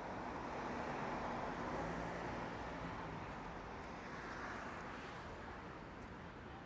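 A road vehicle passing on a street: an even rumble of engine and tyre noise that swells about two seconds in and then fades away.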